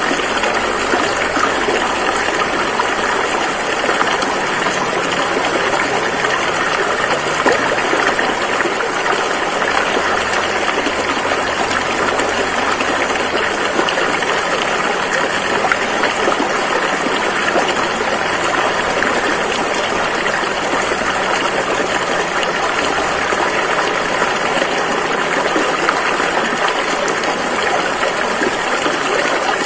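Rushing river flowing steadily: a dense, even rush of water with no breaks.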